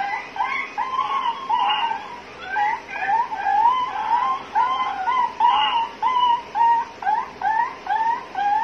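Recorded bird chirps played through a small Bluetooth speaker: a steady run of short rising-and-falling chirps, about three a second.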